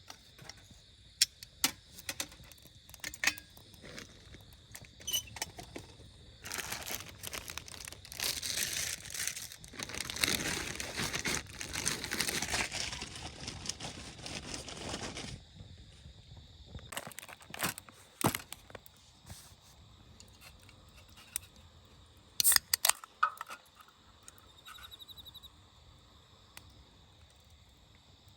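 Crinkling and rustling for about nine seconds in the middle, with scattered clicks and knocks before and after, over a steady background of crickets chirping.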